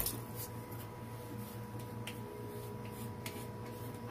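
Quiet room tone with a steady electrical hum, broken by a few faint brief scratches or clicks.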